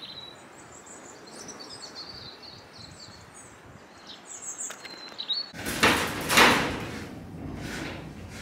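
Small birds chirping and tweeting over a faint outdoor hiss. About two-thirds of the way in, a sudden loud rushing noise breaks in, peaking twice within about a second, then settles into a steadier, louder hiss.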